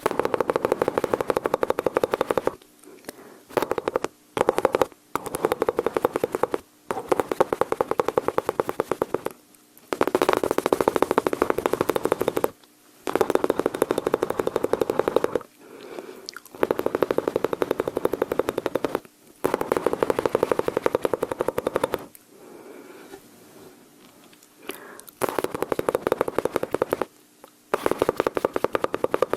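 Close-miked mouth sounds imitating machine-gun fire: rapid rattling runs of tongue and lip clicks, each burst lasting one to three seconds, with short pauses between them and a quieter lull near the end.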